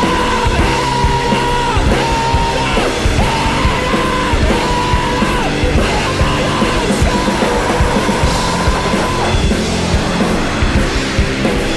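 Psychedelic rock band playing live, loud and full, drums driving under a lead line of long held notes that bend at their ends; the lead line drops out about three quarters of the way through while the band plays on.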